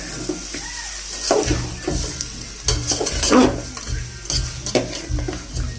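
Chicken frying in a pan while a spatula stirs and scrapes it, clinking against the metal. Background music with a steady low beat comes in about a second and a half in.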